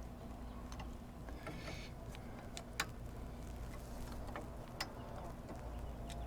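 Several short, sharp clicks and taps of hand tools and bolt hardware being handled while the light bar's mounting brackets are put back together, the loudest nearly three seconds in, over a low steady hum.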